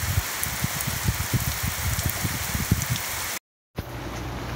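Heavy rain pouring steadily, with irregular low thumps on the microphone. About three and a half seconds in it cuts out for a moment, then steadier, quieter rain on a paved street comes in with a low hum under it.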